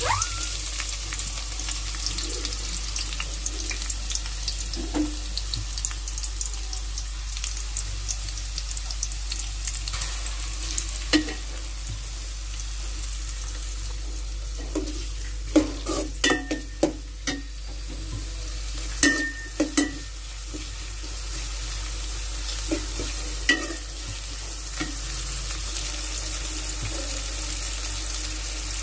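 Sliced red onions sizzling in hot oil in a metal pot while being stirred with a steel spoon. The spoon clanks against the pot several times around the middle, some strikes with a brief metallic ring.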